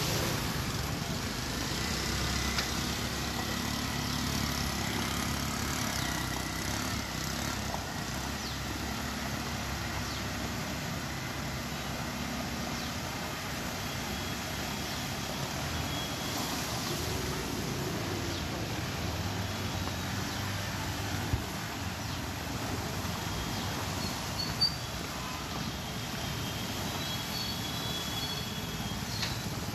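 Road traffic wading through floodwater: car and motorbike engines running at low speed over a steady wash of water and road noise, with two short sharp clicks in the second half.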